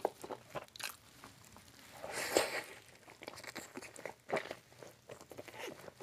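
Close-miked eating sounds: a man biting and chewing curry-soaked fried food, with wet smacks, small crunches and a louder crunchy bite about two seconds in.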